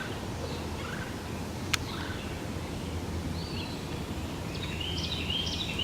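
Outdoor yard ambience: a steady low background hum with a few short bird chirps in the second half, and a single sharp click a little under two seconds in.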